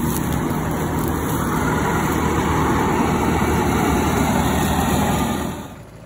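Combine harvester running steadily: a low engine drone under a broad rush of machinery noise, cutting off suddenly near the end.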